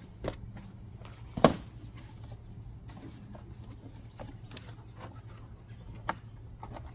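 Cardboard shipping box being handled, its top flaps pulled and folded open, with rustling and a few sharp knocks and taps of cardboard. The loudest knock comes about a second and a half in. A steady low rumble runs underneath.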